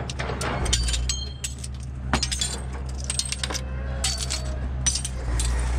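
Aluminum window frames and broken glass clattering as they are handled and tossed from a pickup bed. Scattered clinks and light metallic rattles come in clusters, some ringing briefly, with loose glass shards tinkling.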